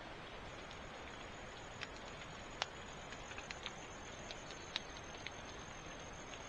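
A steady high-pitched insect trill, as of crickets, over a low even hiss, with scattered sharp ticks, the loudest about two and a half seconds in.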